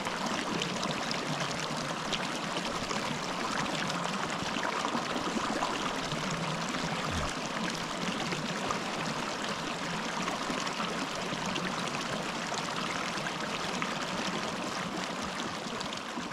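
Fast-flowing mountain stream, a steady even rush of water.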